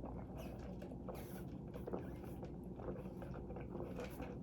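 Soft eating sounds during a pause in talking: chewing, with scattered small clicks and crackles.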